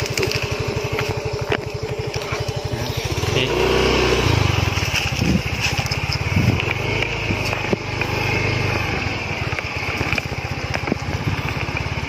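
Small motorcycle engine running with an even beat of firing pulses, revving up about three seconds in as the bike pulls away, then carrying on at steady throttle along a rough dirt trail.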